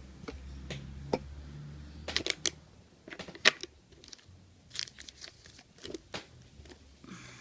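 Irregular clicks and clatters of small hard objects being handled and set down, the sharpest click about three and a half seconds in.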